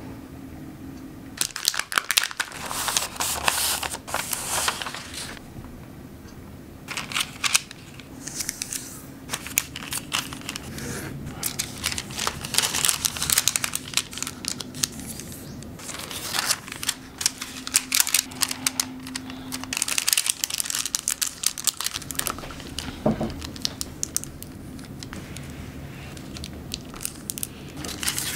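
Heatproof oven wax paper crinkling and crackling as it is folded and creased by hand, in irregular bursts.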